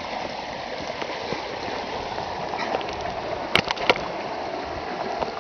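Muddy flash-flood water running down a shallow wash: a steady rushing flow. Two sharp knocks come close together about three and a half seconds in.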